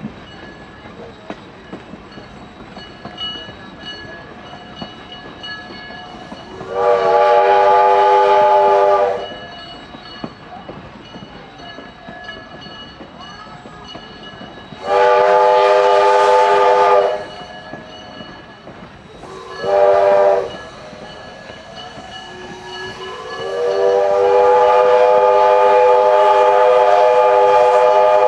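Steam locomotive whistle of Ventura County Railway No. 2 sounding the grade-crossing signal: two long blasts, one short, then a final long one that slides up in pitch as it opens. It sounds over the steady running noise of the train.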